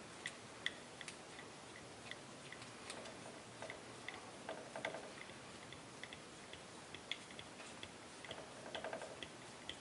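Faint, irregular light clicks of a hex driver turning a small hex screw into a plastic RC-car differential case by hand, with the case being handled, as the screw is run in but not yet tightened.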